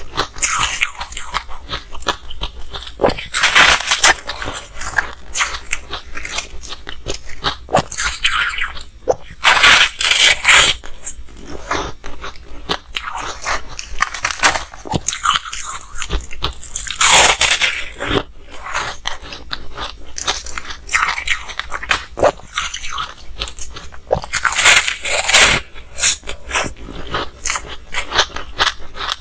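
Close-miked biting and crunching of frosted frozen ice broken from a molded block of small ice balls: sharp cracks and crackling chews throughout, with louder bouts of crunching roughly every seven seconds.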